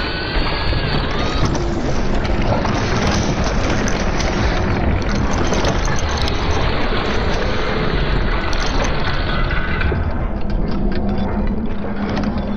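A large mechanical machine runs steadily and loudly: a dense rumble and hiss with scattered clattering clicks. A few rising whines come in the first second or two. About ten seconds in the hiss thins and a steady low hum comes forward.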